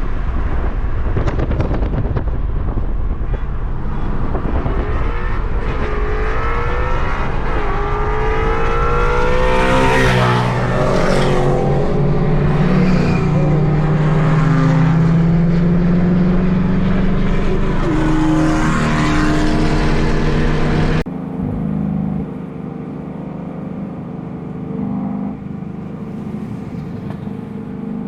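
Ford Mustang engines and exhausts revving and accelerating hard, the pitch climbing several times. About two-thirds of the way through, the sound drops abruptly to quieter, steadier engine running.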